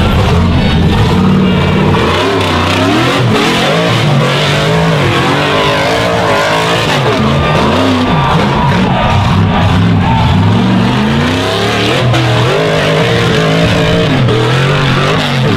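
Rock bouncer buggy's engine revving hard over and over as it climbs a boulder hill, its pitch rising and falling in quick surges.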